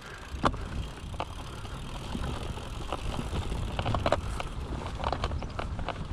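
Mountain bike rolling over rough, dry, hard ground: irregular sharp knocks and rattles from the bike over a steady low rumble of the tyres.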